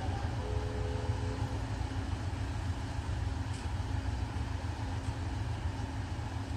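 Steady low engine rumble with a constant hum, holding level rather than fading away. A faint two-note tone sounds briefly about half a second in and lasts about a second.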